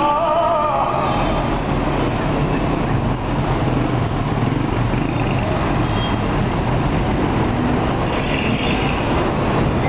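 City street traffic: a steady, loud rush of bus and car engines and tyres as vehicles pass.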